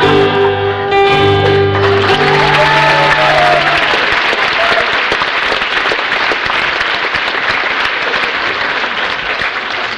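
The song ends on a held final note over guitar backing music. After about two seconds the audience breaks into applause, which carries on for the rest and eases slightly toward the end.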